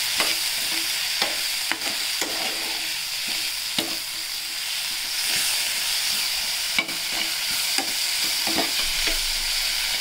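Onion and tomato masala sizzling in hot oil in a kadai, stirred with a metal spoon that scrapes and taps against the pan at irregular moments.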